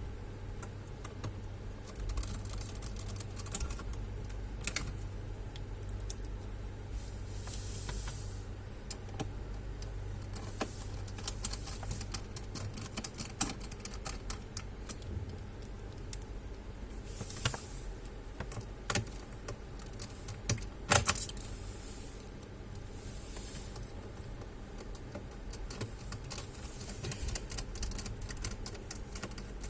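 Irregular small clicks, taps and short scrapes of hands working on the plastic and metal parts of an all-in-one desktop computer, with a louder run of clicks about two-thirds of the way in, over a steady low hum.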